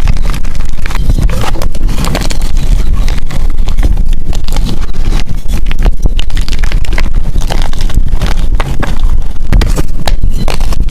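Gym chalk being crushed, a loud, continuous run of crackling crunches and crumbles.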